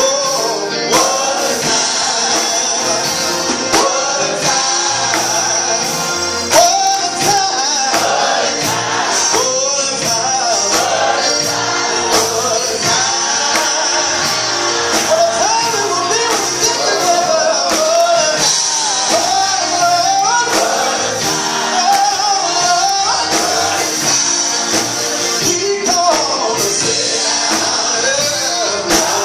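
Live gospel music: a male lead singer on a microphone with a choir of men and boys singing along, backed by drums with a steady beat.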